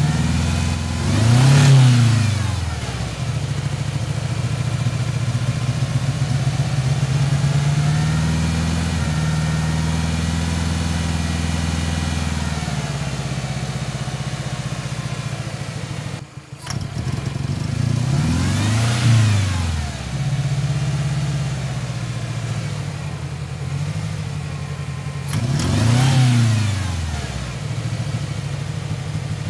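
1997 Ford Ranger 2.3L four-cylinder engine, fitted with a Magnaflow exhaust, idling rough. The throttle is blipped three times, once near the start, once past the middle and once near the end, each time rising and falling in pitch. The owner puts the rough running down to a dead cylinder 1 with low compression and cracked rings.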